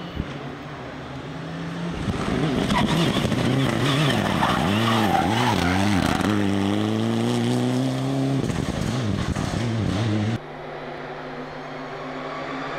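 Mitsubishi Lancer Evolution IX rally car's turbocharged four-cylinder engine driven hard, its revs swinging up and down quickly through gear changes and corners, then climbing steadily through a gear. About ten seconds in it cuts off abruptly and a quieter run of the engine starts building.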